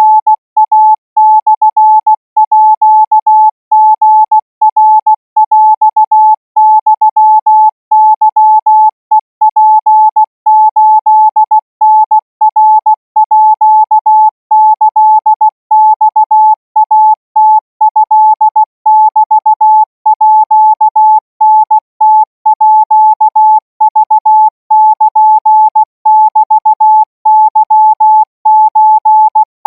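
Thai Morse code practice signal: a single pure tone keyed on and off in short dots and longer dashes at 20 words per minute, sent continuously as radio telegraphy training.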